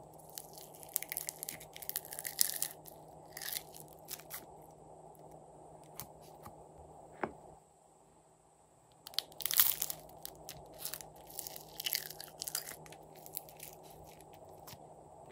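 Small styrofoam foam beads being handled and tipped out of plastic cups onto slime, crackling and crunching in two spells of about two seconds each, near the start and about two-thirds of the way through, with a few light clicks between.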